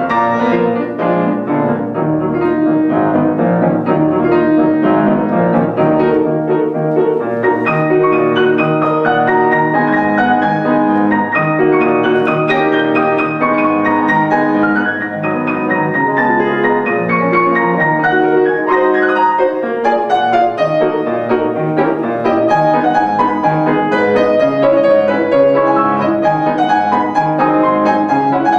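Solo grand piano being played: a continuous passage of many notes over changing bass notes, at a steady loudness throughout.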